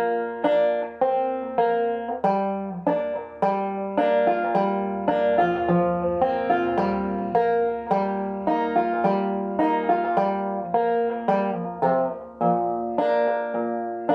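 Open-back banjo picked two-finger style in double C tuning lowered a whole step, playing a slow, even melody of single plucked notes over a ringing low string.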